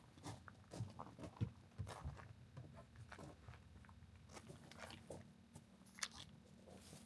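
Faint crunching and scattered knocks: footsteps in dry leaves and a hard plastic case set down on a wooden picnic table, with one sharp click about six seconds in.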